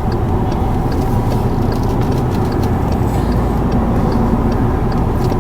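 Steady low road and engine rumble heard from inside a moving car, with a faint regular ticking.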